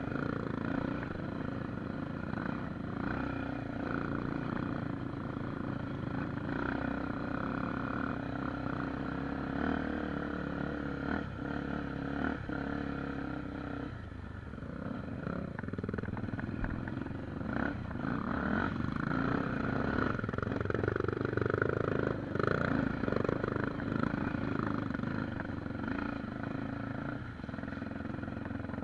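Trail motorcycle engine running through a ride, the throttle rising and falling, with a few knocks about eleven seconds in and louder running later on.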